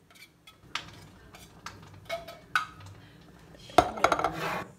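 A tin can and a utensil clinking and scraping against a metal cooking pot as condensed cream soup is emptied into it. Scattered single taps give way near the end to a louder run of quick knocks and scraping.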